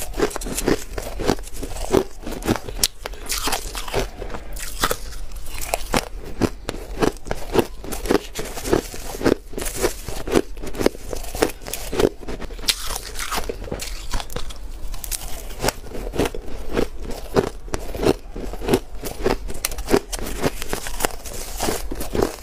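Shaved ice being chewed, close-miked: a steady run of crisp crunches, about two to three a second.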